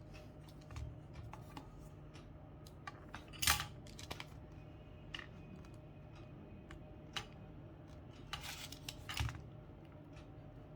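Small plastic and metal calculator parts being handled and pried during a teardown: scattered light clicks, with a louder scrape about three and a half seconds in and another cluster of scrapes and clicks near nine seconds.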